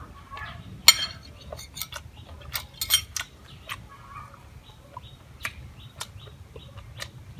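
Metal spoon clinking against a ceramic plate as corn is scooped and the spoon is laid on the rim, with the sharpest clinks about a second in and around three seconds in, then lighter scattered clicks.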